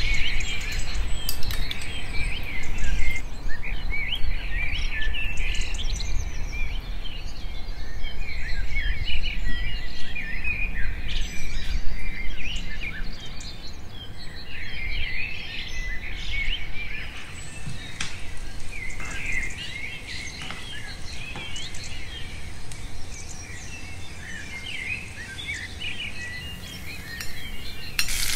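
Small birds chirping and twittering in a busy chorus of short, overlapping calls, thinning out somewhat in the second half.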